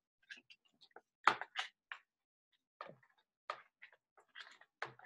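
A silicone spatula scraping and pressing thick cornstarch-and-water oobleck against a glass bowl, giving a dozen or so irregular faint clicks and short scrapes. The loudest comes about a second in.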